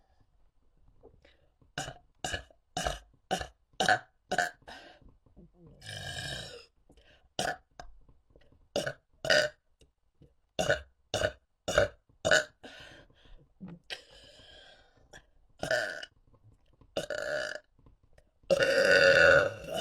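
A person burping over and over: runs of short, quick burps, with a few longer ones between them, and a long, loud burp near the end.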